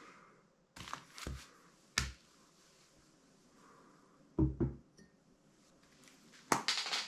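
Tabletop handling noises: a few small knocks and clicks, then a low double thud about four seconds in as a coffee cup is set down on the table. Near the end there is a rustle of paper as a road map is handled.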